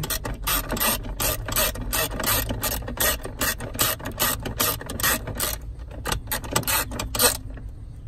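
Quarter-inch drive ratchet clicking in quick back-and-forth strokes, about four or five clicks a second, as it tightens a 10 mm mounting nut through a long extension and swivel socket. The clicking thins out near the end as the nut snugs down.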